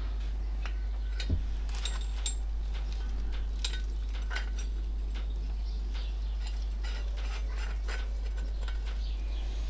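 Faint metallic clicks and taps of a C-frame valve spring compressor being worked over a valve spring on a Classic Mini cylinder head, with one dull knock about a second in. A steady low hum runs underneath.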